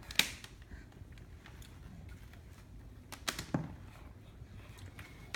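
A few sharp clicks and knocks from a toddler handling a power cable and its plug: one just after the start, a couple about three seconds in, and a louder knock right at the end.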